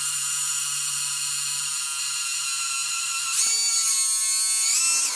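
Small electric water pump running with a steady whine as it empties a model submarine's vented ballast tank. About three and a half seconds in, the whine jumps higher and louder as the speed-control dial is turned all the way up, the setting that opens the snorkel solenoid. Its pitch shifts again near the end.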